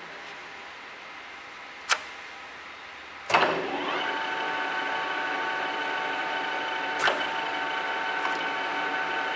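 Kingston HL4000 engine lathe: a sharp lever click about two seconds in, then a clunk as the drive is engaged and the headstock gear train starts running with a steady, even whine of several pitches. Another lever click comes about seven seconds in, over the running gears.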